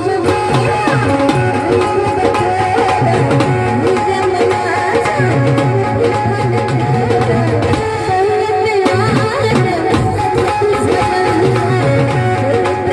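Marathi folk music from a small live band: tabla-style hand drums keep a steady rhythm under a held drone and a wavering melodic line.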